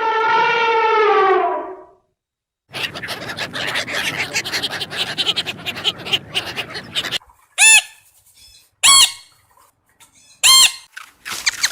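Animal sounds: a drawn-out call falling in pitch, then several seconds of scratchy rustling, then three short, sharp squawks spaced about a second or more apart.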